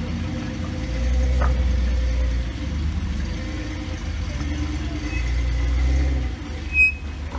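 Flat-fender Willys Jeep engine running at low revs under load while crawling up a rock ledge, swelling twice as the throttle is fed in. A short, sharp high squeak near the end.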